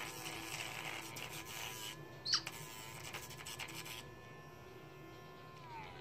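Small electric pet nail grinder running with a steady whine while it files an African grey parrot's toenails, the grinding hiss stopping about four seconds in and the whine falling in pitch near the end. A single short, high squeak about two seconds in.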